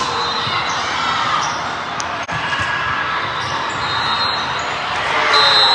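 Gym noise during an indoor team-sport match: shoes squeaking on the court, ball hits and spectators' voices over a steady crowd din.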